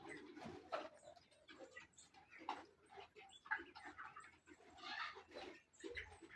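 A flock of broiler chickens calling faintly, many short overlapping cheeps and clucks at irregular intervals.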